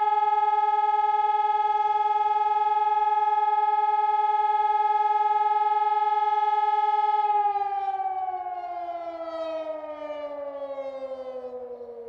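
Hörmann ECI 600 electronic siren (600 W) sounding a steady tone on a test alarm; about seven seconds in its pitch starts falling steadily and it fades as it winds down.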